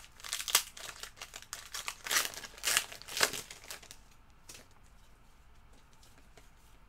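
Foil wrapper of a trading-card pack crinkling and tearing as it is opened by hand: a quick run of sharp crackles that dies down about four seconds in to faint rustling.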